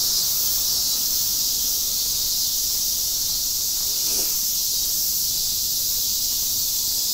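Steady, high-pitched drone of insects, unbroken throughout.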